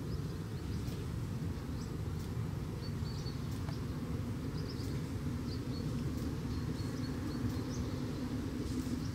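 Outdoor rural ambience: a steady low rumble with faint, short high-pitched chirps scattered through, most of them in the second half. The hen itself makes no audible call.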